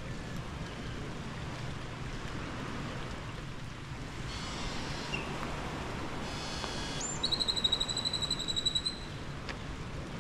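Steady outdoor background noise with a bird's call about seven seconds in: a short rising whistle, then a rapid high trill on one pitch lasting nearly two seconds.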